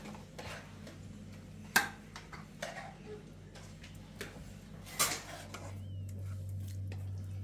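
A few sharp clicks and light knocks, two louder ones about 2 and 5 seconds in, over a steady low hum.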